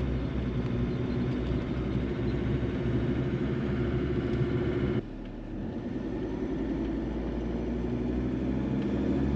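Engine and road noise inside the cab of a Ford Ranger Wildtrak ute driving along, a steady low hum. It dips suddenly about five seconds in and then builds back up.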